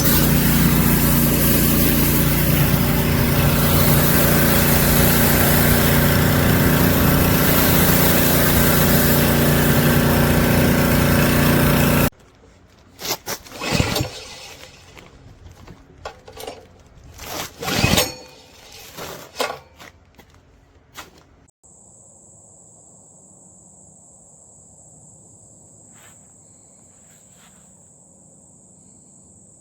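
Gas pressure washer engine running with the hiss of the spray, loud and steady, stopping abruptly about twelve seconds in. Then scattered knocks and handling sounds, and in the last stretch a quiet background with a steady high whine.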